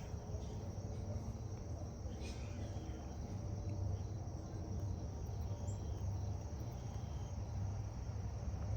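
Quiet, steady background hum with a faint, constant high-pitched whine over it.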